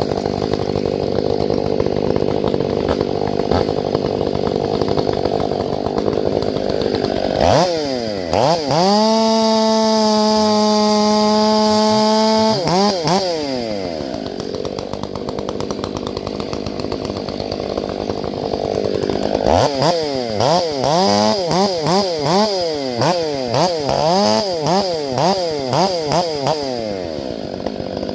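Ported, fuel-injected Stihl MS500i two-stroke chainsaw revving without cutting: it idles, snaps up to full throttle and holds steady there for about four seconds, drops back to idle, then is blipped over and over in quick short revs near the end, showing off its sharp throttle response.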